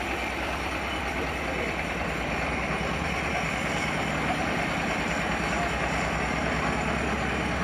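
Small stationary-type engine of a self-propelled rice thresher running steadily, with a low, even hum and a rattle of the machine as it is driven along.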